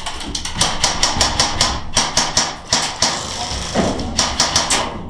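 Airsoft gunfire in a firefight: a fast, irregular string of sharp cracks and knocks, several a second, without pause.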